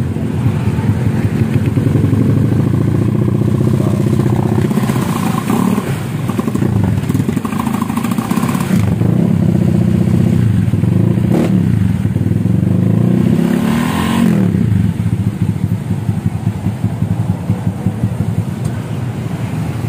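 Honda Vario scooter's single-cylinder four-stroke engine running through a newly made open racing exhaust, revved up several times and dropping back to idle between the blips.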